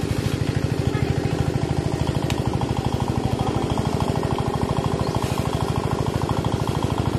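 A small engine running steadily at an even speed, with a rapid, regular thumping beat.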